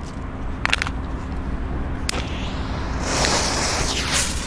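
Firecracker fuses being lit: two light clicks, then about three seconds in a hiss of about a second as the flame takes the fuses.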